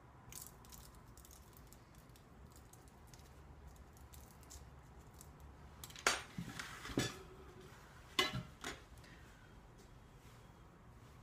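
Metal tweezers ticking and clicking against a spoon, dish and the bench while a small frozen foil sample packet is folded closed, with a few sharper clinks between about six and nine seconds in.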